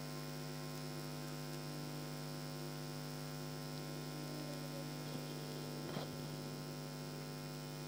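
Steady electrical mains hum, with a couple of faint snips of tailor's scissors cutting cloth about five and six seconds in.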